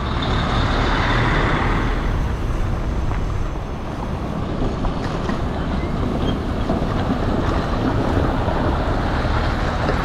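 Road traffic noise, with a heavy truck's engine and tyres passing close, loudest in the first couple of seconds.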